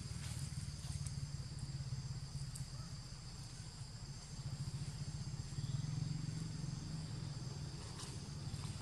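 Steady high-pitched drone of insects in the forest, with a constant low rumble underneath and a few faint clicks.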